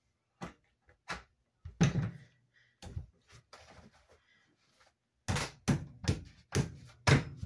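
Knocking as a part is tapped into the frame of a roller racer ride-on toy. A few separate thunks come first, then a quick run of strikes at about four a second near the end.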